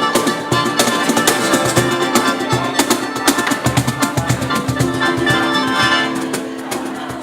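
A live band playing music, with plucked strings and drums keeping a steady beat.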